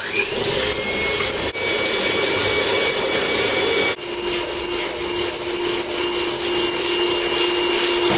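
Electric hand mixer running steadily, its beaters whipping egg whites into meringue in a stainless steel bowl. The motor's hum shifts in pitch about four seconds in, and the sound dips briefly twice.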